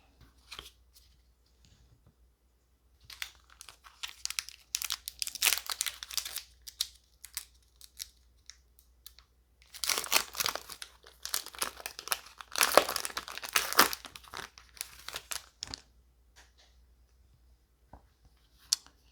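Trading-card booster pack's foil wrapper being torn open and crinkled, in two spells of ripping and rustling, the second about ten seconds in and the louder.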